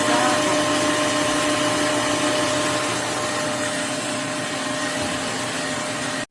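Wet-and-dry vacuum-mop running steadily while washing the floor: a motor hum with a steady whine. It cuts off abruptly at the end.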